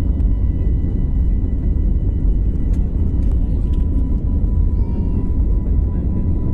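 Airliner cabin noise while the aircraft rolls along a wet runway: a loud, steady, deep rumble of the engines and wheels, with faint steady high tones above it.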